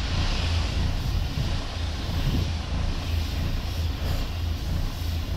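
Compressed-air paint spray gun hissing steadily as it sprays paint onto a truck bumper, over a steady low machine hum.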